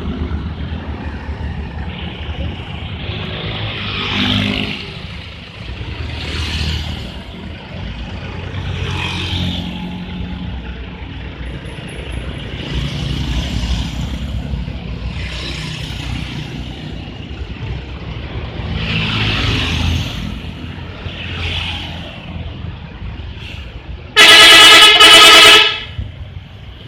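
Traffic passing on a road, with a vehicle swelling past every few seconds. About 24 s in, a bus's 'telolet' musical horn sounds once, very loud, for about a second and a half with a brief break in the middle.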